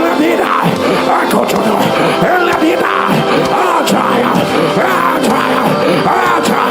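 Worship music with held notes, under many voices praying aloud at once.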